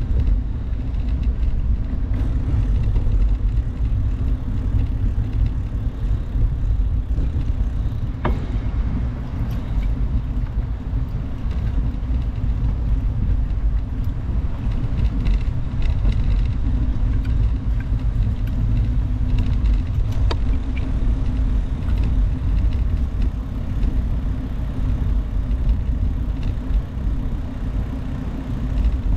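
Steady low rumble of wind buffeting the microphone and bicycle tyres rolling over brick pavers while riding, with two sharp clicks, about eight and twenty seconds in.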